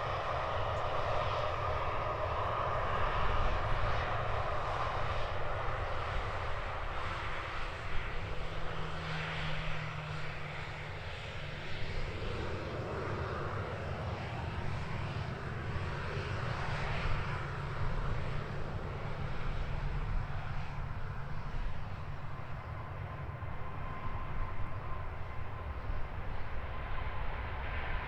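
Airliner engines at an airport, a continuous rushing noise with a heavy low rumble that swells and eases slightly.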